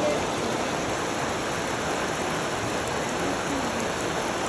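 Steady heavy rain falling, an even hiss.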